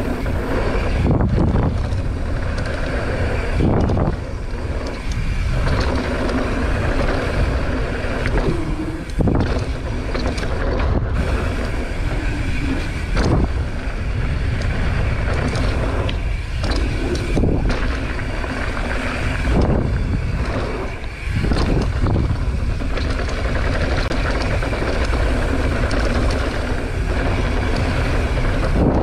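Wind rushing over a GoPro microphone, with tyre and frame rattle from a mountain bike riding fast down a dirt jump trail. Several brief knocks from bumps or jump landings are spread through it.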